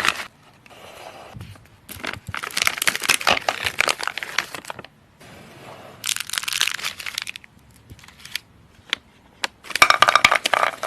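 Sweets being crushed and crinkled close up: three bursts of dense crackling, each a second or more long, with fainter crackles between them.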